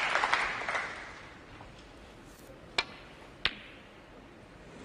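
Arena applause dying away, then two sharp clicks of snooker balls about two-thirds of a second apart: the cue tip striking the cue ball, then the cue ball striking the object ball on a shot that misses the pot.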